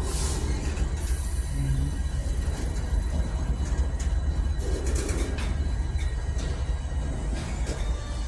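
Freight train rolling past: a steady low rumble with scattered clicks throughout.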